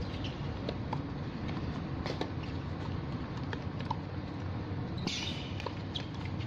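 Tennis rally on a hard court: sharp, scattered racket-on-ball hits and footfalls over a steady low hum, with a short shoe scuff on the court about five seconds in.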